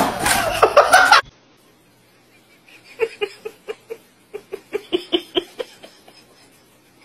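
A person giggling in a string of short, quick bursts, about four or five a second, for roughly three seconds. Before that, a loud burst of voice and noise cuts off suddenly about a second in.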